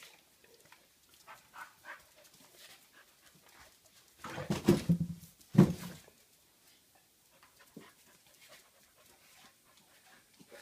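Dog vocalising: a short, low-pitched burst of dog sounds about four seconds in, rising to two loud peaks within two seconds, with faint scattered ticks before and after.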